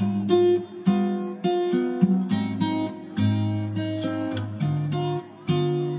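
Background music: acoustic guitar strumming chords, which change every half second to a second.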